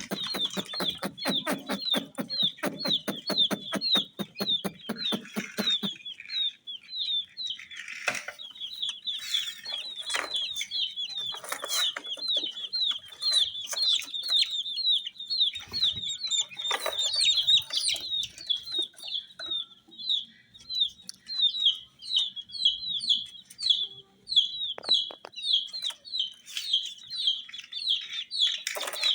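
Baby chicks peeping nonstop in short, high, repeated chirps, several a second. A fast rattle of clicks runs under them for the first few seconds, and a few soft knocks come later.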